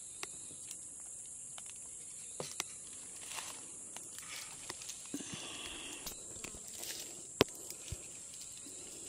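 Rainforest insects keeping up a steady high-pitched drone, with scattered light clicks and rustles and one sharper click a little past seven seconds in.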